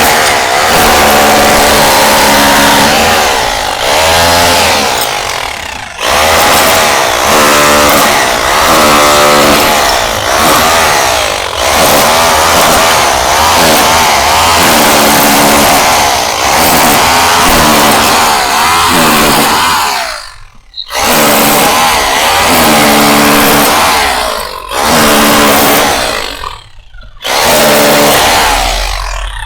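Stanley SHR263K corded rotary hammer in chisel mode hammering tile and mortar off a wall, its motor pitch wavering as the load changes. It runs in long stretches, stopping briefly four times.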